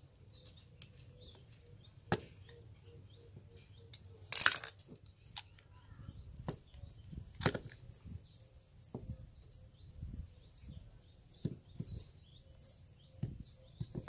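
Sporadic knocks and clinks of starter-motor parts being handled as the nuts are hand-tightened, the loudest about four and a half seconds in. Small birds chirp faintly throughout.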